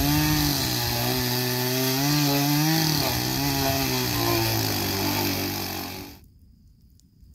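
Chainsaw running and cutting into a log, its note wavering under load and easing lower about four and a half seconds in. It stops abruptly at about six seconds, leaving only the faint crackle of a wood fire.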